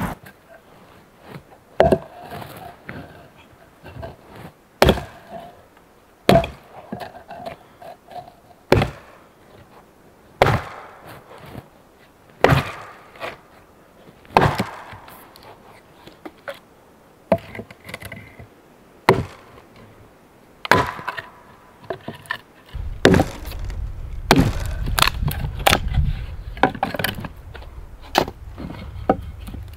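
Sharp wooden knocks every second or two: a hatchet chopping and a wooden mallet pounding on logs, with chips splitting off. From about three-quarters of the way in, the chops come faster over a low rumble.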